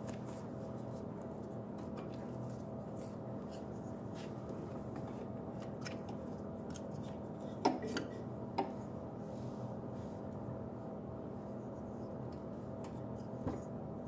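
Green plastic wiring harness connector of a Honda ATV's up/down shift switch being handled and unplugged, with a few small sharp plastic clicks a little past halfway and one more near the end, over a steady background hum.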